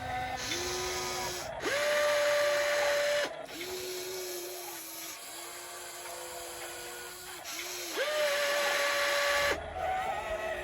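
Electric motors of a toy RC excavator whining as its arm and bucket are worked, a steady whine that starts and stops in stretches and steps between a lower and a higher pitch. The higher whine is louder, about two seconds in and again about eight seconds in.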